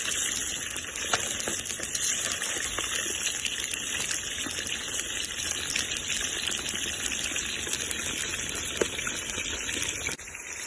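Chicken pieces sizzling in a kazan of deep hot oil, a steady frying hiss with a few sharp ticks scattered through it.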